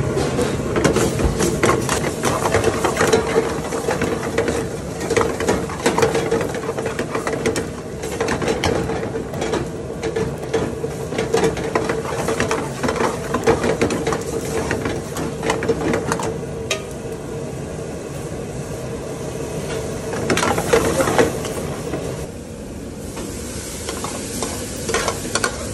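A metal ladle stirring and scraping a thick prawn curry in a hot steel pan, the sauce sizzling, with frequent clinks of the ladle against the pan. A steady hum runs underneath.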